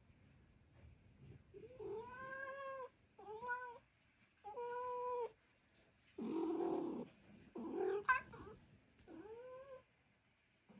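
Minuet cat meowing over and over, six drawn-out calls starting about a second and a half in. Most are steady in pitch and two in the middle are rougher. It is calling for its owner, who has suddenly gone out of sight.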